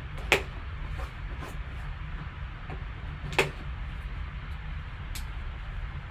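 Folding knife slicing tamper-seal stickers on a cardboard card box, with light handling noise and two sharp clicks, one just after the start and one about three seconds later, over a steady low hum.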